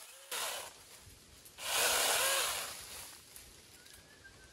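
A cordless mini chainsaw cutting through small tree branches in two short bursts. The second burst, about a second and a half in, is longer and louder.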